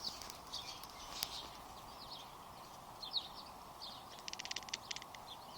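Kitten chattering at birds: several short high chirps, then a rapid run of clicks lasting under a second about four seconds in.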